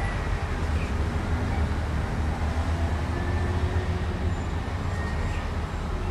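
Steady low rumble with an even hiss of background noise, with no distinct events.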